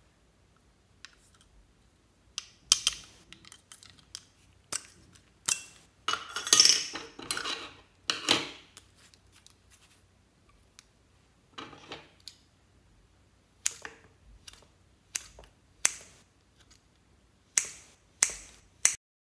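Plastic lipstick tubes being handled and opened: sharp plastic clicks with a longer scraping stretch in the middle. Near the end, scissors snip into the lipstick several times in quick succession.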